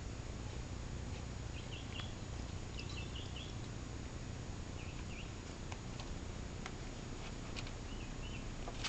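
A small bird chirps faintly in short high bursts four times over a steady low hum, with a few light clicks and taps in between.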